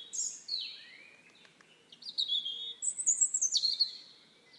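High-pitched bird chirping and warbling in short stepped phrases, loudest about three seconds in.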